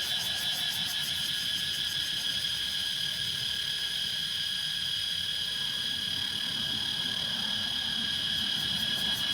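Cicadas calling in a continuous chorus, a steady high-pitched drone that holds unbroken.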